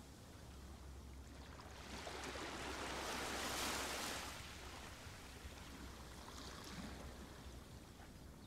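Sea waves washing onto a shore: one wave swells about two seconds in, peaks, and draws back by about five seconds.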